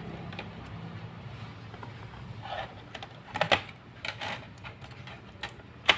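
Irregular small clicks and taps of laptop drive parts being handled by hand, with a sharper click near the end.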